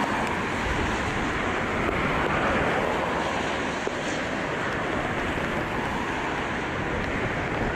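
Steady rushing noise of strong wind buffeting the microphone.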